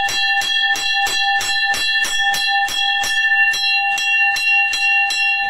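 Temple bell rung rapidly, struck about four to five times a second, so that a steady metallic ring builds up and carries through. Its higher overtones thin out briefly near the end.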